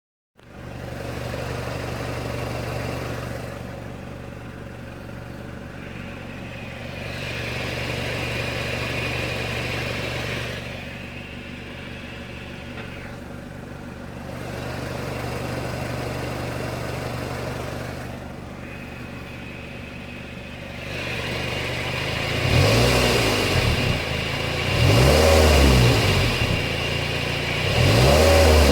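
A 2006 Mazda NC Miata's 2.0-litre four-cylinder idling, with a grinding noise with the clutch pedal pressed that swells and eases every few seconds; the owner suspects a failed bearing. In the last several seconds the engine is revved three times, rising and falling each time.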